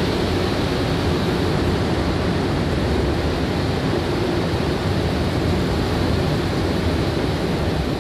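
Montreal Metro MR-73 rubber-tyred train running at speed through a tunnel, heard from inside the car: a steady loud rush of running noise with a low hum underneath.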